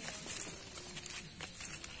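MN99S scale RC crawler truck working through a wet, muddy rut: scattered small clicks and scrapes of the tyres on the dirt over a steady high-pitched hiss.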